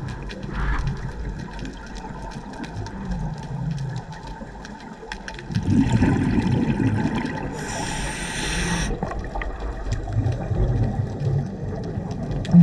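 Scuba diver breathing through a regulator underwater: one hissing inhale a little past the middle, with low, rumbling bubbling of exhaled air before and after it.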